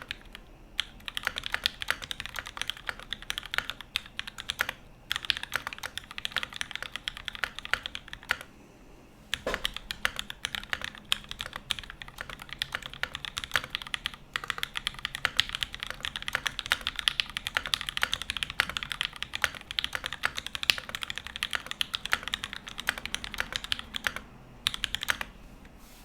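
Typing on a Space65 R1 custom mechanical keyboard with lubed and filmed Alpaca linear switches on an aluminium plate, GMK keycaps and no foam dampening: a fast, continuous run of keystrokes broken by a few brief pauses.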